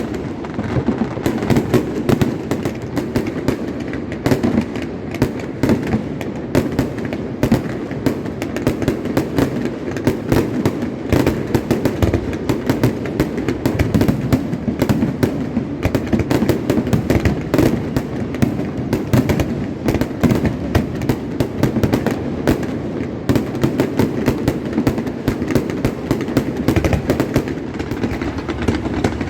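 Fireworks display with shells bursting in quick, dense succession, many bangs overlapping into a continuous crackle with no pause.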